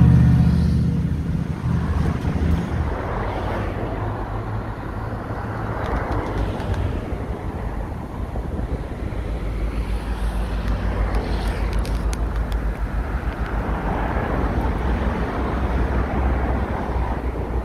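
A diesel locomotive's engine passes beneath and fades away over the first couple of seconds, leaving a steady low rumble of background traffic.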